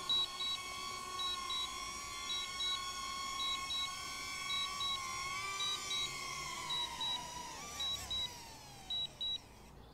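DJI Neo mini drone's propellers whining steadily as it descends to land, the pitch wavering and then falling away as the motors spin down on touchdown. A short double beep repeats about once a second through it and stops just after touchdown.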